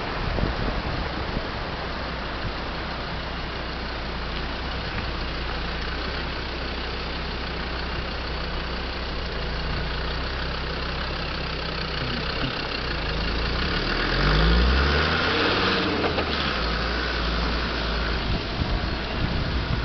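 Land Rover Discovery engine running slowly, then revving up with a rising pitch about 13 seconds in as it pulls away across the grass.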